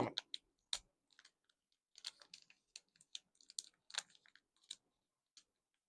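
Faint, scattered small clicks and taps of small plastic accessories and packaging being handled, most of them in the middle of the stretch.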